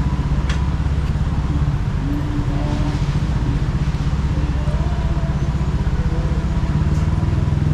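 An engine idling steadily close by, getting a little louder near the end.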